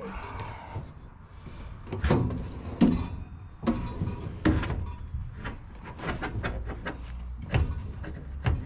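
Steel tool cabinet drawers being slid along their runners and knocked, with several sharp metallic knocks and rumbling slides.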